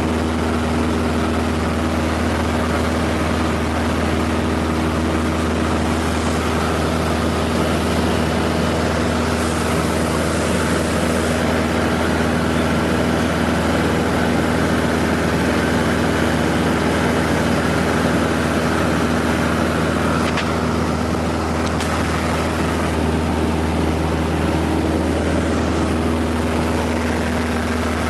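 Cessna 150's four-cylinder Continental O-200 engine and propeller running at a steady, unchanging note.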